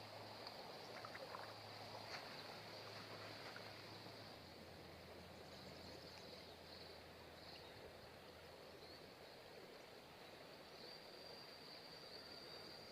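Near silence: faint outdoor background with a thin, steady high-pitched whine and a low hum, plus a few faint ticks in the first few seconds.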